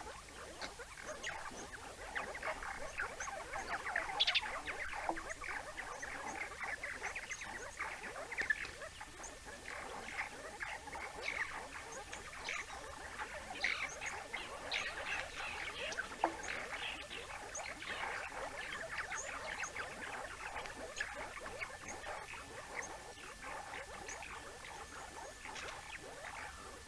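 Banded mongoose troop keeping up a dense chatter of short, high chirps and twitters, many animals calling at once, thinning out near the end.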